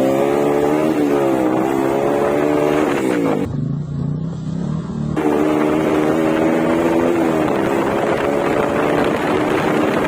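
Superbike engine and exhaust under way, its pitch climbing and wavering with the throttle and then falling steeply about three seconds in. For a second or two the note is lower and duller, then a steadier, higher engine note returns with small rises and falls.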